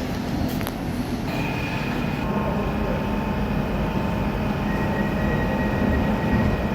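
Docklands Light Railway train running at an underground platform, a steady rumble with electric whining tones that set in about a second in and hold steady.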